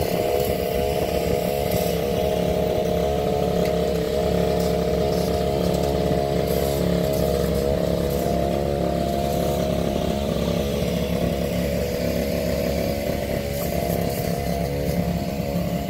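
A small engine running steadily at a constant speed, its even hum unchanged throughout.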